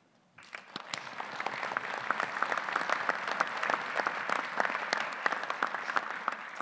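Audience applauding, starting about half a second in and holding steady.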